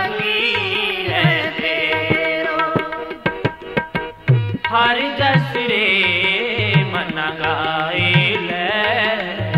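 Instrumental interlude of a Sikh devotional shabad: tabla keeps a steady cycle under a wavering melodic line with vibrato. The bass drum's deep strokes rise in pitch about once a second, and a cluster of sharp tabla strokes comes near the middle.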